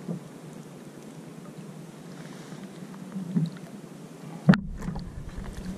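Calm sea lapping softly against a fishing kayak, with light wind on the microphone and a sharp knock on the kayak about four and a half seconds in.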